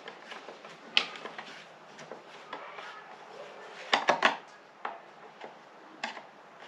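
Screwdriver and hands working on a chainsaw's engine housing, making small clicks and knocks of metal on plastic: a sharp click about a second in, a quick cluster of clicks about four seconds in, and a few single taps after.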